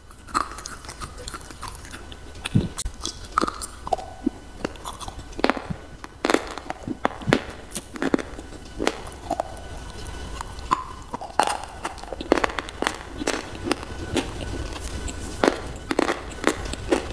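Close-up crunching and chewing of a chalky white slate bar: irregular sharp crunches, one to a few a second, as pieces are bitten off and ground between the teeth.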